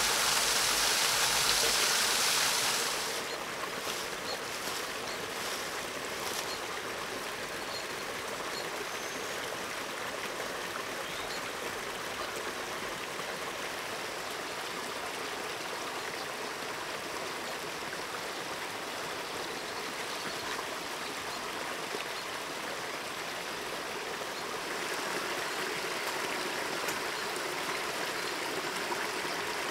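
Forest stream and small cascade rushing steadily, louder for the first few seconds and then settling. A few faint clicks come a few seconds in, and the rushing grows slightly louder near the end.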